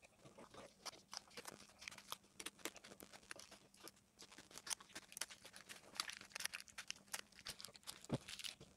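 Protective plastic film being peeled off an aluminium composite panel: a faint, irregular crackling and tearing.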